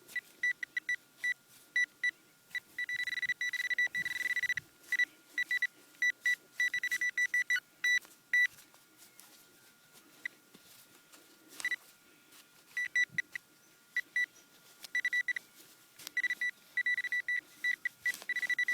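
Garrett Pro-Pointer pinpointer probe beeping in short, uneven bursts of one high tone, sometimes held as a longer continuous tone, which the owner says is playing up.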